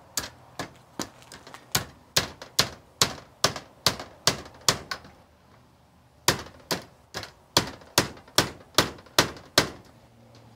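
Sharp metallic clicks in a steady rhythm, about two and a half a second, in two runs with a short pause near the middle, from a hand tool being worked on the service mast's weatherhead fitting.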